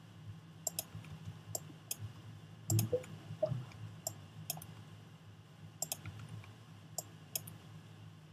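Computer mouse clicking: sharp single and paired clicks at irregular intervals over a faint steady low hum, with a soft thump about three seconds in.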